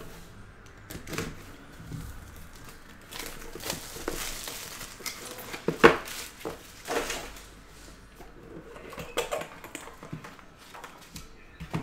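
Plastic shrink wrap crinkling as it is torn off a sealed cardboard trading-card box, amid scattered clicks and taps of the box being handled, with a sharp tap about six seconds in.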